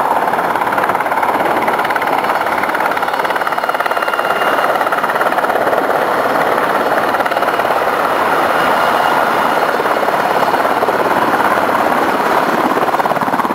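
Two UH-60 Black Hawk helicopters running low and close overhead: a loud, steady rotor roar with rapid blade chop and a faint high turbine whine in the middle.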